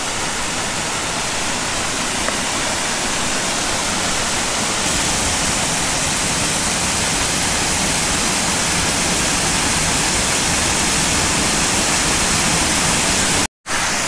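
Woodland waterfall pouring over rock into a plunge pool: a steady rush of falling water. The sound cuts out completely for a split second near the end.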